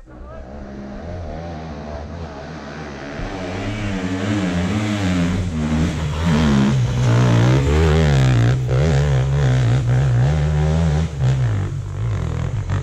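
Dirt bike engine revving hard on a steep hill climb, its pitch rising and falling as the throttle is worked. It grows louder over the first several seconds, stays loud, and drops briefly just after eleven seconds before revving again.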